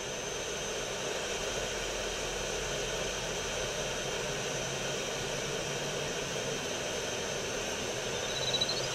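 Steady hiss with a faint, high, steady whistle-like tone held through it. Near the end comes a short run of faint rising chirps.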